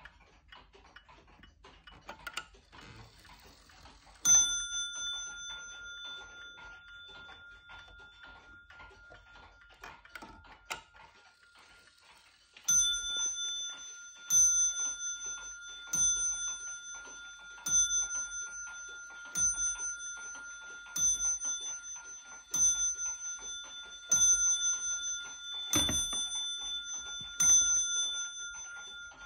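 Westerstrand pendulum wall clock ticking softly, then striking: one ringing strike about four seconds in, and later ten strikes about a second and a half apart for ten o'clock, each note ringing on until the next.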